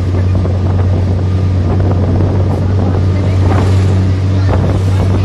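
Vehicle engine running steadily with a low drone, mixed with wind rushing in through an open window as it drives along a hill road.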